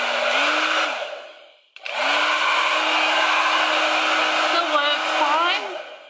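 An old Parlux hair dryer blowing: a steady rush of air over a motor hum. It winds down and stops about a second in, starts again at about two seconds, runs steadily, and winds down near the end.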